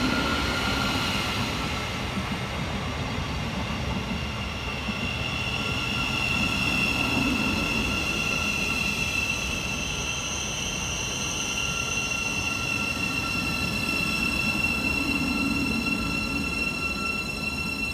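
Class 717 electric multiple units running through the station: a steady rail rumble with high, ringing squeal tones held throughout.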